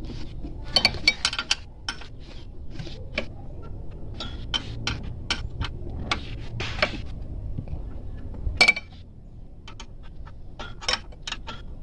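Irregular metallic clicks and clinks of a 12 mm wrench working an alternator's adjusting bolt loose, with one louder clink a little past the middle.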